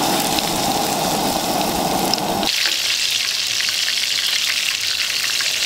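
Breaded Scotch eggs frying in oil in a pan: a steady, bright sizzle. It starts abruptly about two and a half seconds in, replacing a duller steady rushing noise.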